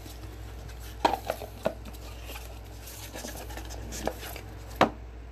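Light taps and clicks of a pack of hockey cards being handled and set on a tabletop mat by gloved hands: a cluster about a second in, a few more later, the sharpest near the end. A low steady hum runs underneath.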